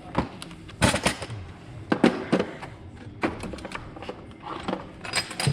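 Impact gun working in several short rattling bursts, with separate sharp metal knocks between them.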